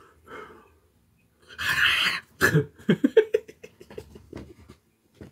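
A man coughing while eating: one hard, breathy burst about one and a half seconds in, then a quick run of short, strained coughs with some voice in them.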